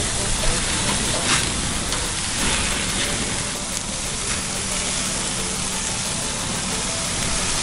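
Mutton kebabs and chicken tikka sizzling on a barbecue grill: a steady hiss with light crackles, with wind rumbling on the microphone.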